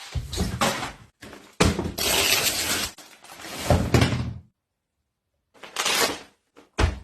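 Packaging being handled and opened in several separate bursts of rustling noise with low thumps, the longest lasting just over a second, and a short sharp knock near the end.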